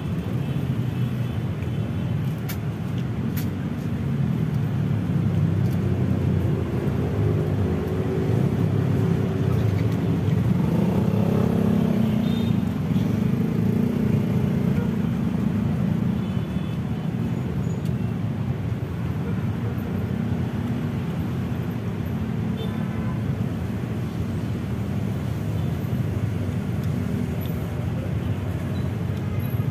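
Steady rumble of road traffic, with a few faint clicks about two to three seconds in.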